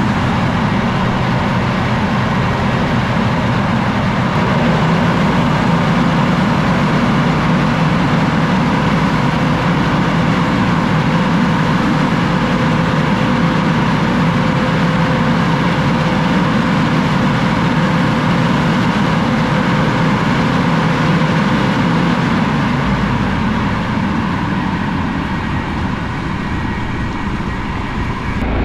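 Tractor-drawn Air-O-Fan air-blast orchard sprayer running: a steady loud rush from its big fan blowing water spray, over the tractor engine working at steady revs. It eases slightly near the end.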